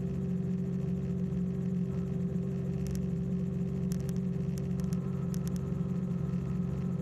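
Small plane's engine running steadily in flight, heard from inside the cabin, with a few faint clicks.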